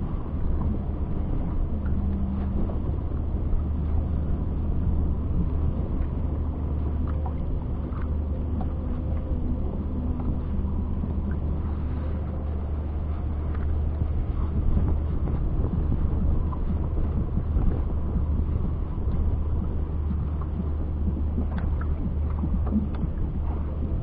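A boat engine running steadily: an even low hum with no change in speed.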